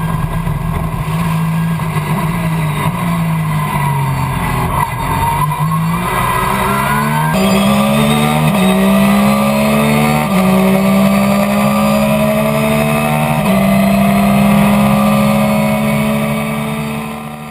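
Porsche 911 GT3 race car's flat-six engine heard onboard. The revs waver low for the first few seconds, then it accelerates hard up through the gears, the pitch climbing and dropping at each of several upshifts. It fades out just before the end.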